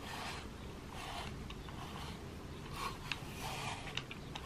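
Metal-bristled slicker brush raking through a cat's fur in repeated strokes, a soft scratchy rasp about once a second, five strokes in all.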